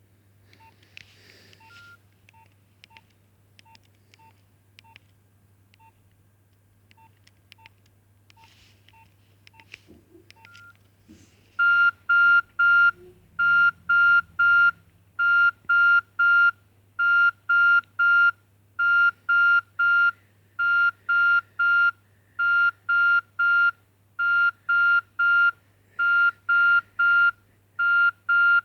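Nokia 2610 mobile phone: faint key clicks and short single key beeps for about ten seconds, then a loud electronic ringtone of high beeps in quick groups of two and three, repeating over and over from the phone's small speaker. A steady low hum lies underneath.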